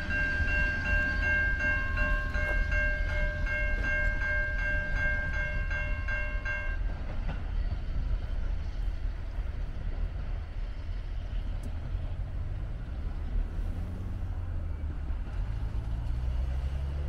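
Level-crossing warning bell ringing in a steady, rapid pulse, cutting off suddenly about seven seconds in as the train clears the crossing. Under it runs the low rumble of the train moving away. Near the end, a vehicle engine revs up as it pulls over the crossing.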